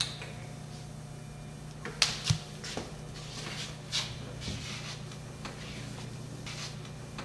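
A cat's claws and paws scratching and tapping at a closet door: scattered short scrapes and taps, the loudest pair about two seconds in, over a steady low hum.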